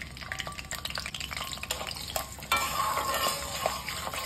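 Garlic cloves frying in hot oil in an aluminium kadhai, a steady sizzle with many small crackles. It grows louder about two and a half seconds in, as a metal spatula stirs the cloves.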